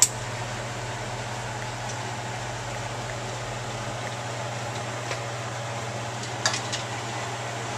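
Steady hum with an even airy hiss from the running equipment of a fluorescent penetrant inspection booth, with a few faint clicks about two thirds of the way through.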